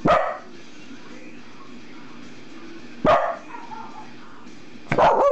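Corgi barking: a single sharp bark at the start, another about three seconds in, and two quick barks in a row near the end.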